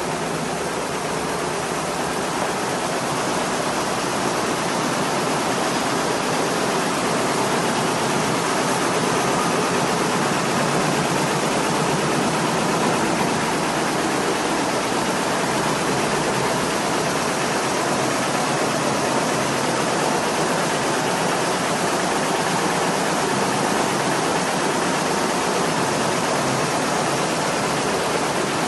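Richpeace computerized multi-needle quilting machines running, a steady dense mechanical clatter of many needles stitching at once. It grows a little louder over the first few seconds.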